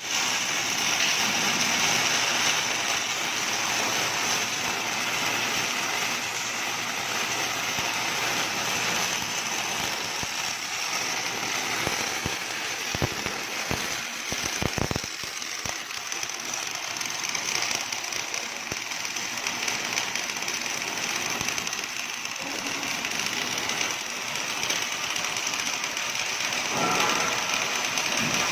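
Automatic MIG welding arc on a CNC axle welding machine, a steady crackling hiss as the torch runs the seam, with a few sharp clicks around the middle.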